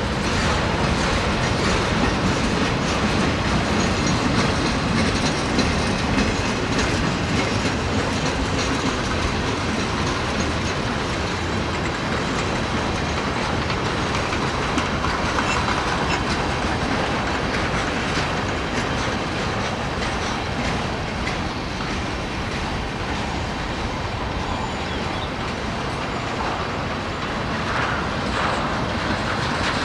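Freight train rolling steadily past, the wheels of its cars running over the rails.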